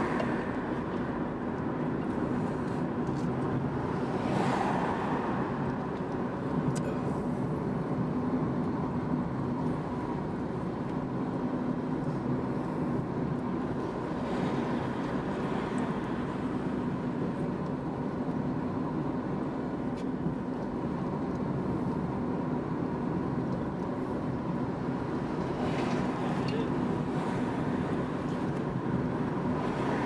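Steady road and engine noise of a car driving slowly, heard from inside the cabin, with a low steady hum. The noise swells briefly three times as other vehicles pass.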